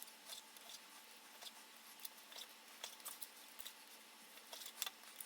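Faint, irregular clicks and taps of a knife cutting raw chicken breast into strips on a chopping board.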